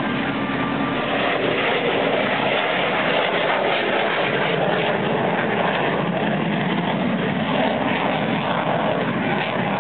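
Military jet aircraft in flight, heard from the ground as a steady rushing jet noise with no clear rise or fall.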